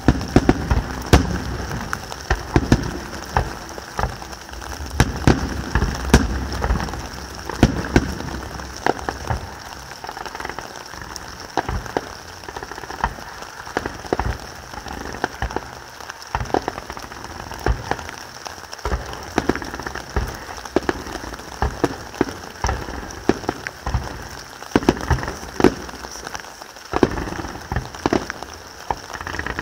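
Fireworks going off: a rapid, irregular string of bangs from bursting aerial shells over dense crackling from crackle stars.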